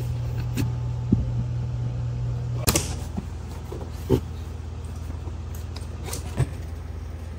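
A few sharp knocks and clacks as a rolling suitcase and its telescoping handle are handled, the loudest two about three and four seconds in. A steady low hum runs underneath.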